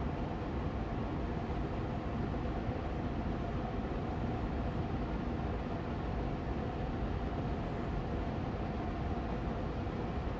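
Austin Air Allergy Machine air purifier fan running steadily on medium speed: an even rushing hum of moving air with a faint steady tone in it.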